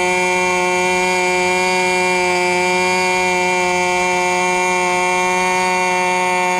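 Raduga R10R 10 cc glow-plug model aircraft engine running at a steady, high, unchanging speed and driving its propeller, held at open throttle for running-in.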